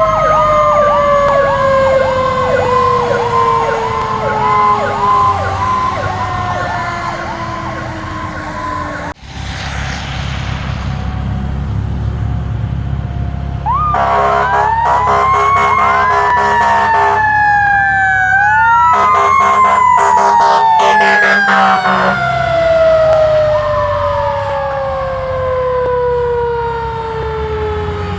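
Fire truck sirens: a mechanical siren winds down in a long falling wail while an electronic siren yelps rapidly over it. After a sudden cut, a siren winds up again with two stretches of rapid pulsed horn blasts, then coasts down slowly, over the rumble of heavy truck engines.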